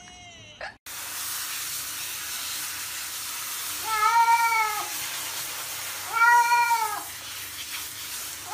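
Cat meowing twice, each a long call that rises and falls, about two seconds apart, over the steady hiss of a handheld shower spraying water on it.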